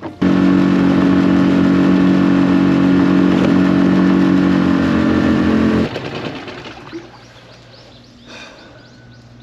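Small tiller outboard motor on a mini boat running steadily under way at a constant pitch, then cutting off abruptly about six seconds in, leaving only a faint low hum.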